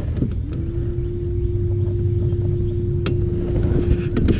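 A small motor humming steadily at one even pitch, coming in about half a second in and holding on, over a low rumble, with a sharp click about three seconds in and a few more near the end.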